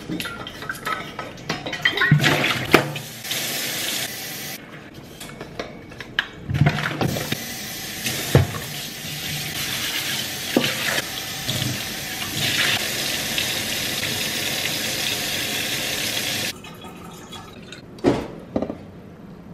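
Water running steadily and cutting off suddenly a few seconds before the end, with scattered knocks and clinks.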